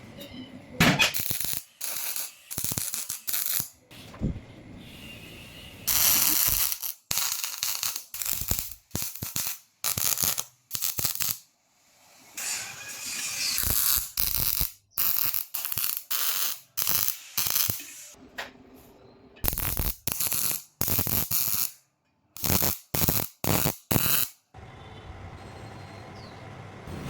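Mechanical clicking and rattling in a run of short pieces, each starting and stopping abruptly.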